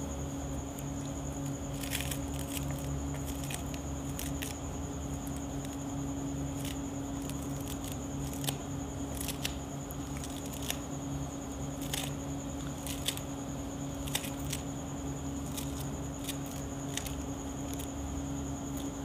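Kitchen knife chopping fresh coriander on a hard tray: irregular sharp taps of the blade on the tray, roughly one a second, over a steady background hum.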